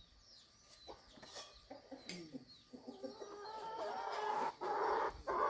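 Chickens clucking, louder over the last couple of seconds, with small birds chirping high and repeatedly.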